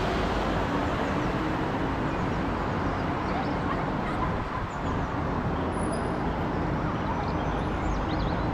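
Rolls-Royce Trent 7000 turbofans of an Airbus A330-900neo climbing out overhead: a steady, even jet roar, heaviest in the low rumble.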